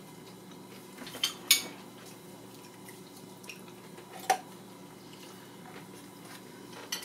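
A few short, sharp clinks and clicks of tableware and cutlery on a dinner table, the loudest about a second and a half in, over a faint steady room hum.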